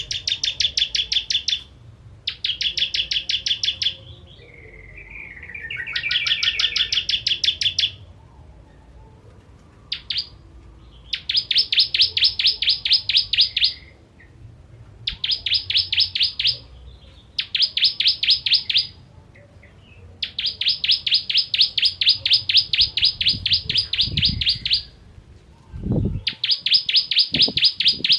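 Ciblek kristal prinia singing in bursts of fast, rapid-fire high chips lasting one to four seconds, with short pauses between them. A lower warbling phrase comes about five seconds in, and a few low thumps come near the end.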